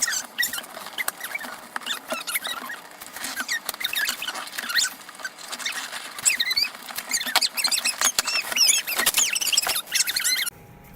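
Packaging being handled and opened: dense crackling and crinkling with sharp clicks and short high squeaks.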